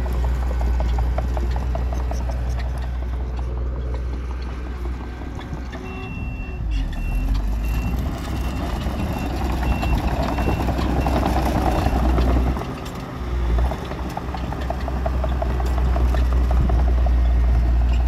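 Diesel engines of heavy earthmoving machinery running with a deep, steady rumble. About six seconds in, a reversing alarm beeps about twice a second for a few seconds.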